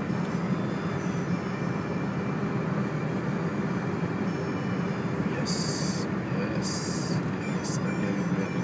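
Steady low drone of engine and tyre noise inside a car cruising on a highway. Near the end, three short bursts of high hiss cut in over it.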